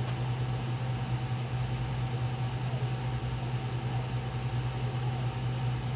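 Steady low mechanical hum, as of an engine or fan running without change, with a short click at the very start.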